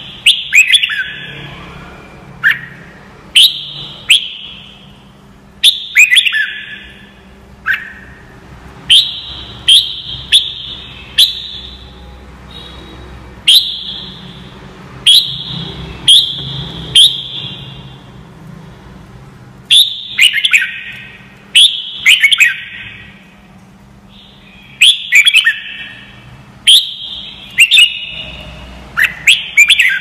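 Red-whiskered bulbul singing: loud, short phrases of sharp whistled notes, a new phrase every second or two, each phrase falling in pitch at its tail, with a few longer pauses between.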